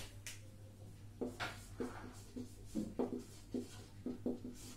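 Marker pen writing on a whiteboard: a run of short, quick strokes starting about a second in.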